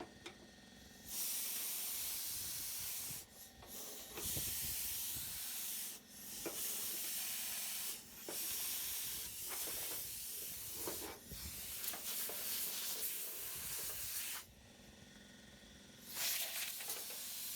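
A series of long hissing bursts, about six in all, each lasting a couple of seconds, with short breaks between them.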